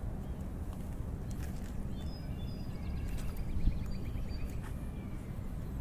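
Outdoor ambience: a steady low rumble of wind on the microphone, with small birds chirping and trilling. There is a short bump about three and a half seconds in.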